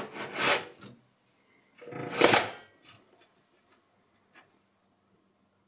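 DVD drive being slid out of a steel drive bay: two scraping rubs, the first right away and the second about two seconds in, then one light click.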